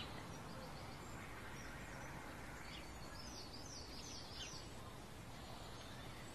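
Faint outdoor garden ambience: a steady low background hiss with small birds chirping, a quick run of high chirps about three seconds in.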